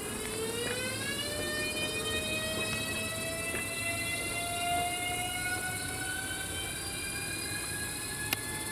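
ES2G 'Lastochka' (Siemens Desiro) electric train pulling away. Its traction drive gives a chord of whining tones that rise steeply in pitch over the first second or so as it accelerates, then keep climbing slowly. A single sharp click near the end.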